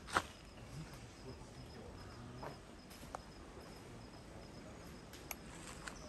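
Insects trilling steadily at a high pitch, with one sharp click just after the start and a few fainter scattered clicks.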